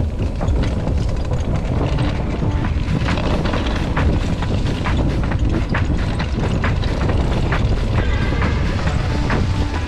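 Wind buffeting the microphone during an e-bike ride, with a dense run of quick rattles and knocks as the bike goes over rough ground.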